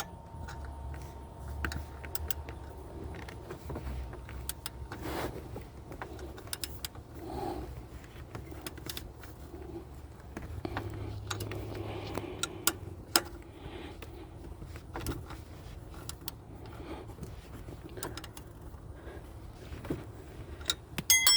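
Scattered metallic clicks and clinks of a wrench and socket as the belt tensioner's bolts are tightened, with a quick run of clicks near the end.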